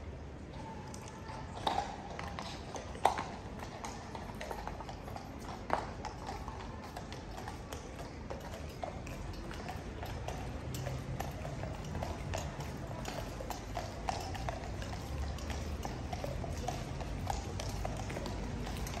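Shod hooves of Household Cavalry horses clip-clopping at a walk on wet paving, a steady run of hoof clicks from several horses. A few louder single knocks come in the first six seconds.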